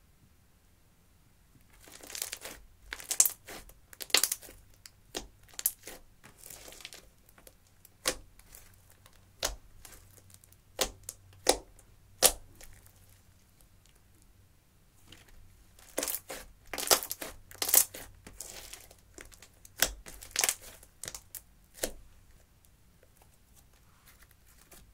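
Hands stretching, folding and pressing clear slime mixed with eyeshadow, making irregular wet pops, clicks and crackles. It starts about two seconds in, pauses briefly midway and tails off near the end.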